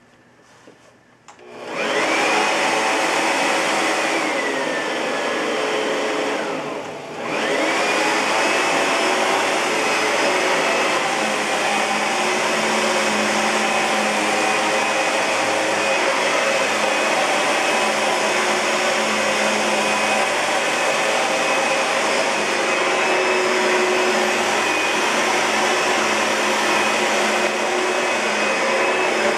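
Oreck Magnesium LW100 upright vacuum cleaner switched on after a click or two, its motor spinning up to a steady rushing run with a high whine. About five seconds after starting it briefly winds down and comes straight back up to speed, then runs steadily.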